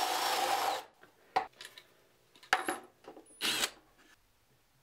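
Cordless drill running as it bores through wood, stopping abruptly a little under a second in. A few short, sharp sounds follow as the drill is handled.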